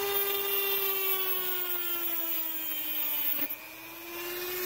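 Handheld rotary tool with a thin cut-off wheel running at high speed, cutting a 6.5-pound Wolff trigger spring to length. It gives a steady whine whose pitch slowly sags as the wheel bears on the steel coils, then picks back up with a brief break about three and a half seconds in.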